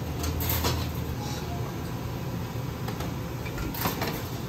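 Restaurant kitchen noise behind a steel serving counter: a steady low hum of kitchen equipment with a few light clinks of crockery and utensils, the sharpest about four seconds in as a bowl is set down.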